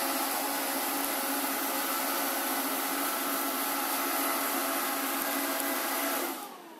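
Alfawise X5 robot vacuum running: its suction fan and brushes make a steady whine. Near the end it switches off, and the whine falls in pitch and winds down.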